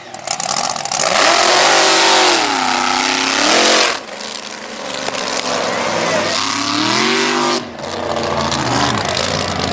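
Mega mud truck's engine revving hard under full throttle, its pitch sweeping down and back up several times, with a loud hissing rush over it for the first few seconds. The sound drops abruptly about four seconds in and again near the end.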